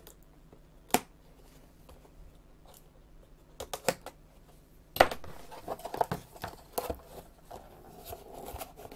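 A blade cutting along the sealed edges of a cardboard shipping box. There is a sharp click about a second in and a few small clicks, then from about five seconds in the lid is pulled open, with cardboard scraping and rustling.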